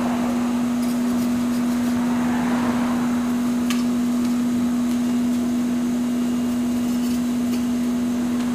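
Steady whirring hum and rush of air from a coal forge's blower feeding the fire, running at an even pitch and level.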